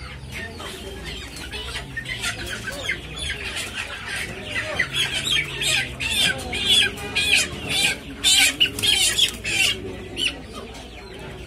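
Chickens clucking and squawking in quick, repeated short calls, getting louder and busier from about halfway through.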